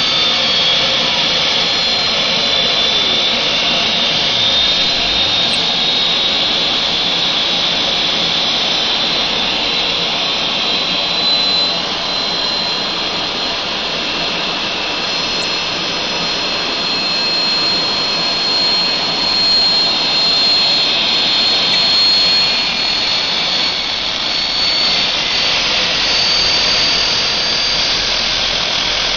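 Homemade turbocharger-based gas turbine (DIY jet engine) running steadily: a loud jet roar with a high compressor whine that drifts slightly in pitch. The level dips briefly about twelve seconds in, and a lower tone slides steadily down during the first five seconds.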